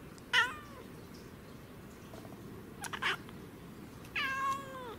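Domestic cat meowing up at something above it that it is trying to get. It gives a short call about half a second in, a quick double call around three seconds, and a longer meow near the end that drops in pitch as it ends.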